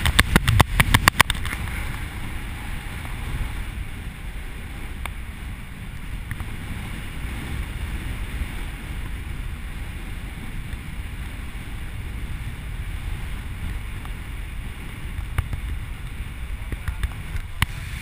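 Wind buffeting the camera microphone during the descent under an open parachute: a steady low rumble, with a burst of rapid clicks in the first second and a few more near the end.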